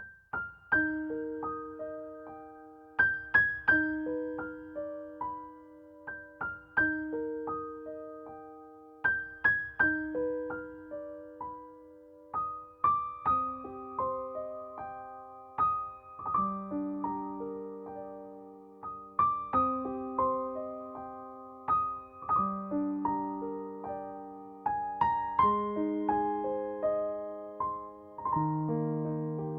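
Background music: a slow, gentle piano piece, single notes and chords ringing out over a repeating pattern.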